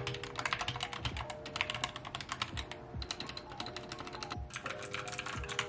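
Rapid typing on a mechanical keyboard, keystrokes clattering in quick runs with brief pauses, over background music.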